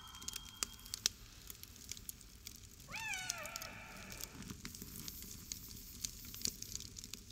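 Faint, irregular crackling and popping from a large steaming pot over a fire. About three seconds in comes a single short meow-like call that rises and then falls.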